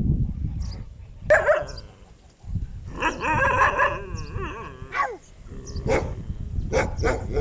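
A man imitating a dog: a short yelp about a second in, then a long wavering howl that falls in pitch, then a few short barks near the end.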